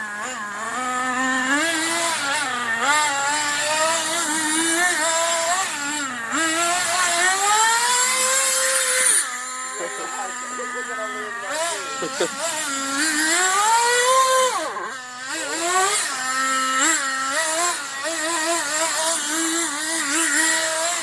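Gas-powered RC car's small two-stroke engine revving up and down as the car is driven around in donuts, its pitch rising and falling constantly, with a couple of brief drops in revs about nine and fifteen seconds in.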